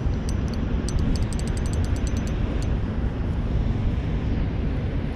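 Steady low rumbling rush of wind and rough, wave-tossed water, with no gaps. A run of faint, irregular high ticks comes through in roughly the first half.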